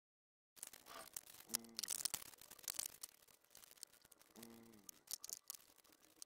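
Gloved hands handling a paper towel and a small plastic tray of wood stain: rustling, crinkling and light clicks, with two short squeaks that fall in pitch, about one and a half and four and a half seconds in.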